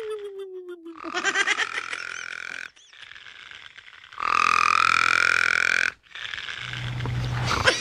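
Snoring rendered as a string of animal-like noises: frog-like croaks and pig-like grunts. It opens with a falling drawn-out tone, then a buzzy rattling stretch, a held higher note, and more rattling grunts near the end.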